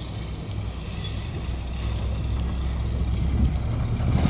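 Mack MR garbage truck's engine running low and steady as the rear loader comes to a stop, with a few short high squeals.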